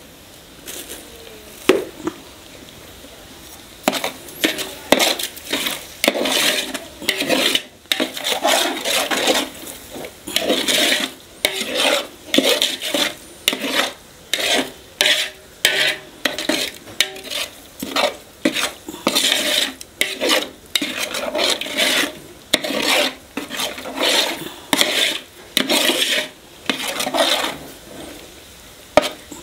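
A perforated metal skimmer ladle scraping and stirring a thick masala paste in a large metal pot, mixing in the salt. It goes as repeated scraping strokes, which pick up a few seconds in and keep a quick, uneven rhythm.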